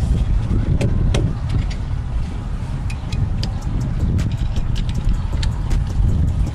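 Wind rumbling on the microphone, with scattered light clicks and taps throughout.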